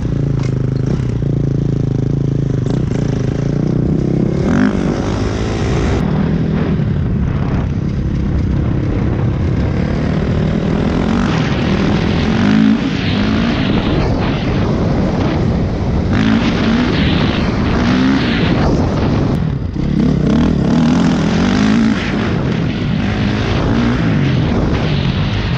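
Honda dirt bike engine running under way as it is ridden, its pitch climbing and dropping back several times as the throttle is opened and closed, with wind noise over the microphone.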